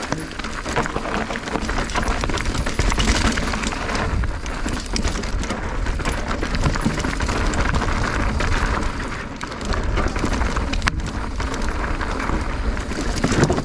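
Mountain bike riding over a rocky trail: a continuous rattle and clatter of tyres and bike over rock, with wind rumbling on the microphone.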